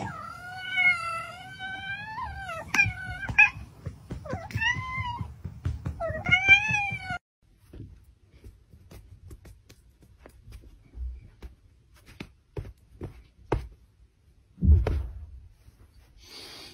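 A cat meowing: one long wavering call, then two shorter calls, over the first seven seconds. After that only light taps and a single thump about fifteen seconds in.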